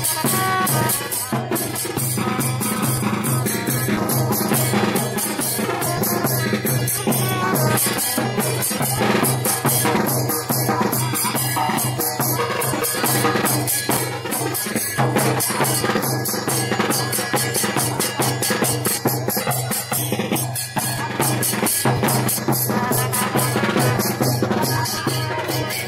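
Marching band playing: hand-held crash cymbals clash in a quick, steady beat over drums.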